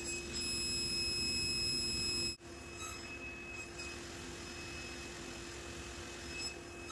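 Table saw running with no cut being made, a steady hum with a constant high whine. It drops abruptly to a quieter level about two and a half seconds in.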